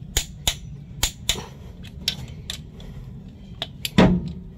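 Irregular sharp clicks and knocks from hand tools and parts being handled on an engine during cylinder head work, about a dozen in all, with the loudest knock about four seconds in.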